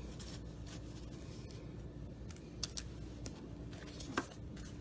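Quiet handling of a stack of cardboard baseball cards: a few light clicks and taps as the cards are picked up and squared, over a faint steady room hum.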